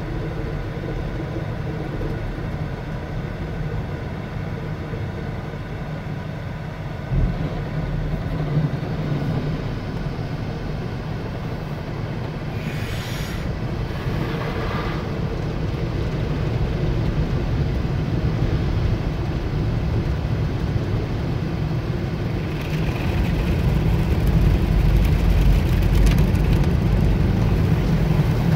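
Automatic tunnel car wash running, heard from inside the car's cabin: a steady rush of water and machinery hum. There is a single thump about seven seconds in, and the sound grows louder over the last few seconds.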